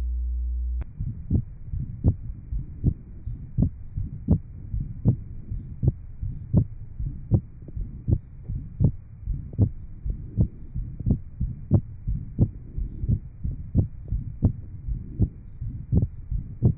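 Heartbeat of a patient after surgical repair of an atrial septal defect, heard over the pulmonic area through a 1950s heart sound recording: regular low thumps at about eighty beats a minute. A steady low hum for about the first second precedes the beats.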